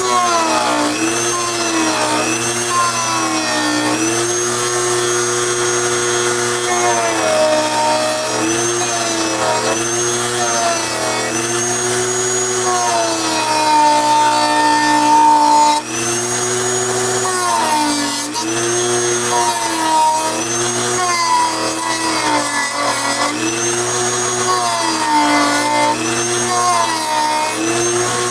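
Dremel rotary tool rounding off the edges of a Kydex holster: its motor whine drops in pitch each time the bit bears into the plastic and climbs back as the pressure eases, again and again.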